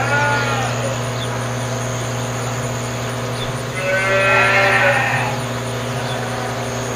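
Cows mooing: one moo trails off just after the start, and a second long moo comes about four seconds in, over a steady background hum.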